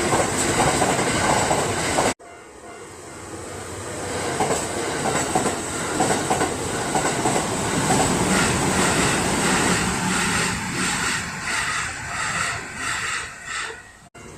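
Kintetsu Osaka Line train passing close by over a level crossing, its wheels clacking over the rail joints in a steady rhythm that grows more distinct late on. The sound cuts off abruptly about two seconds in and again near the end, where clips of separate passing trains are spliced together.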